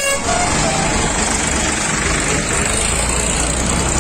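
Diesel farm tractors and trucks running close by in slow, dense convoy traffic, a steady engine noise, with a short horn toot about half a second in.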